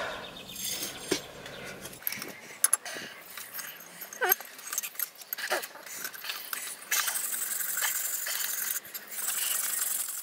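Irregular metallic clinks and taps of pliers and a hammer on a forged railroad spike knife blade held against the anvil as it is straightened, followed by a steady high hiss over the last few seconds.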